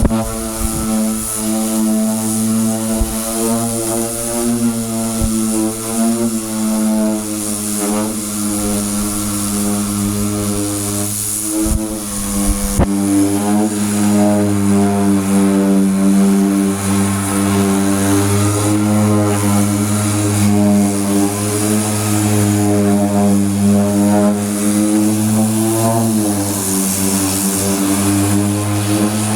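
Power sander running against body filler on a truck door: a steady motor drone whose pitch wavers slightly as it is pressed against the panel, over the hiss of the abrasive.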